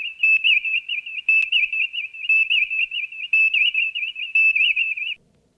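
Sound-alike recreation of an original Star Trek series sound effect: a high electronic whistle that warbles up and down, its pattern repeating about once a second, cutting off shortly before the end.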